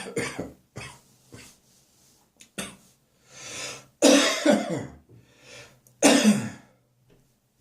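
A person's chesty morning catarrh cough: a cough tailing off at the start, a few short hacks, a breath drawn in, then two hard coughs about 4 and 6 seconds in.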